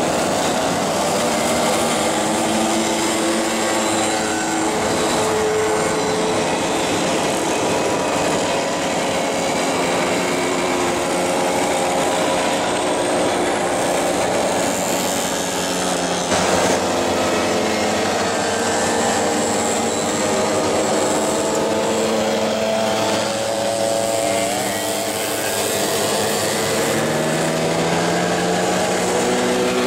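A procession of vintage two-stroke mopeds passing in a steady stream, many small engines buzzing at once at different pitches, with some notes rising and falling as riders work the throttle.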